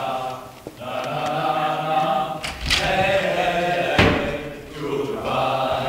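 Several voices singing together in long held notes, choir-like, played back over speakers for a take. There is a sharp knock about four seconds in.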